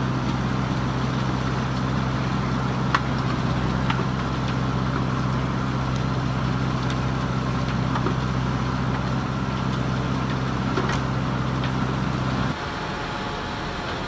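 Heavy diesel farm machinery running steadily at a constant engine note, with a few sharp knocks over it. Near the end the sound cuts abruptly to a quieter, different engine note.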